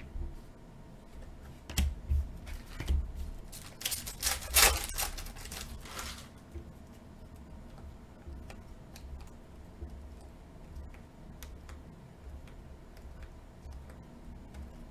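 Trading cards handled and flicked through, with scattered light clicks and soft low thumps. About four seconds in, a foil card pack crinkles and tears for roughly two seconds, the loudest sound.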